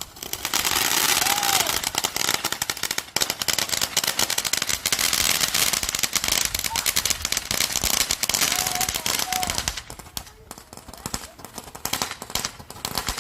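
Firecrackers going off in a rapid, continuous run of pops for about ten seconds, thinning to scattered pops near the end.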